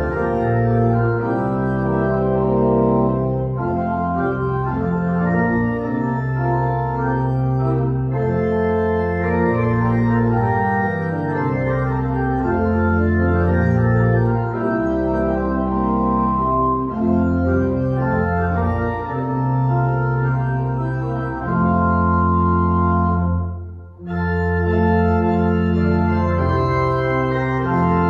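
Church organ playing held chords in a slow sequence, with a short break between phrases near the end.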